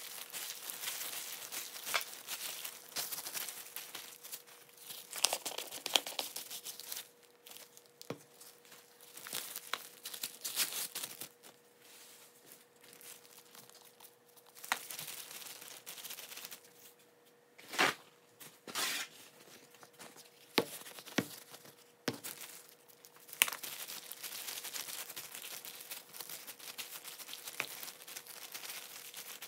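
Disposable plastic gloves and paper towel crinkling and rustling as hands handle raw chicken strips, in irregular spells. Several sharp clicks and taps come in the second half, over a faint steady hum.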